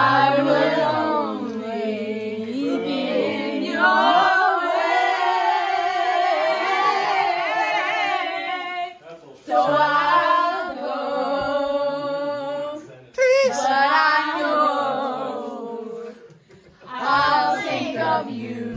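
A group of women and girls singing a song together loudly, in long held phrases that break off briefly three times.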